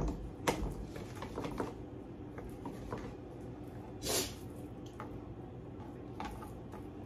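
Chef's knife slicing raw chicken breast on a plastic cutting board: soft, wet squishing cuts, with a few sharp taps of the blade on the board in the first couple of seconds and a brief swish about four seconds in.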